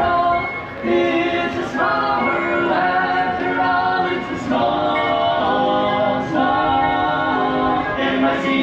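A group of voices singing in harmony, holding chords that change together every second or so.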